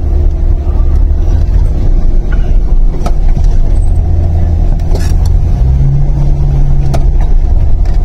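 Car running at low speed, heard from inside the cabin as it rolls slowly over a rough unpaved yard: a steady low rumble, with a few light knocks.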